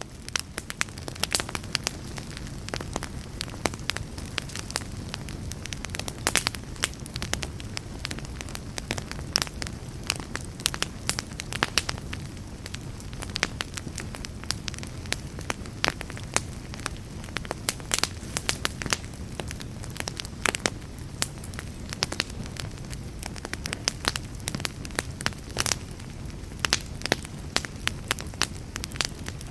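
Wood fire burning with a steady low rush and many irregular sharp crackles and pops.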